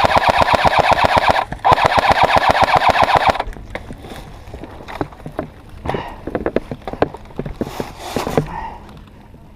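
Airsoft electric gun firing full-auto bursts: a rapid clatter of shots with a motor whine, broken briefly about one and a half seconds in and stopping about three and a half seconds in. Scattered clicks and light knocks follow.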